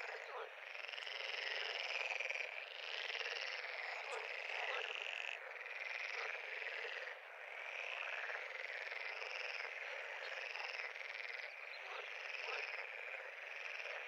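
Chorus of many frogs calling at once, their overlapping high-pitched calls forming a dense, steady wall of sound.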